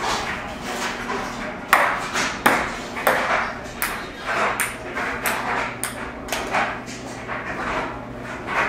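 Ping pong ball bouncing on hard surfaces, a string of sharp, irregular clicks about once or twice a second.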